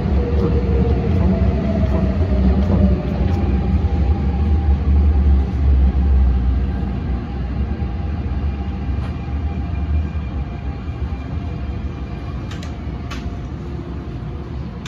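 CAF-built MTR Tung Chung line electric train heard from inside the car: a loud rumble of wheels on rails with a faint motor whine, easing off from about six seconds in as the train brakes into a station. Two sharp clicks near the end.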